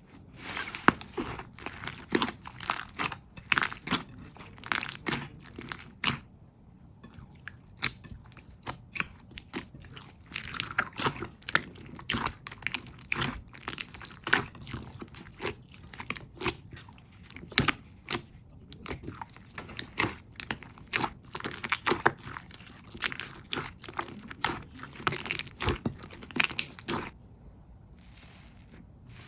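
Jelly slime being squeezed and pressed by hand, giving a dense, irregular run of sticky pops and crackles that stops shortly before the end.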